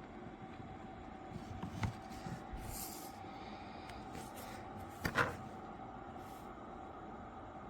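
Handling noises from a hard-shell carry-on suitcase: a few light knocks and a short rustle, then a sharper double knock about five seconds in, over a faint steady hum.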